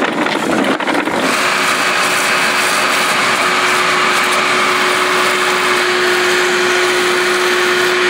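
Wet/dry shop vacuum running, sucking water out of a flooded pit through its hose. About a second in it settles into a steady hiss with an even whine.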